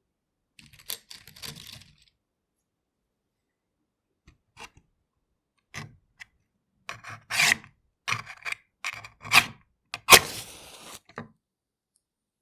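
A match being struck against a striking surface: a series of short rasping scrapes, growing stronger, the loudest about ten seconds in and followed by about a second of fizzing as the match flares.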